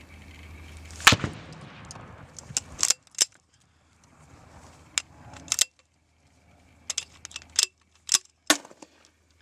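A string of about a dozen sharp, irregularly spaced reports from M203 40 mm grenade launchers firing and their rounds bursting downrange. The loudest comes about a second in, and a quick cluster follows between about seven and eight and a half seconds.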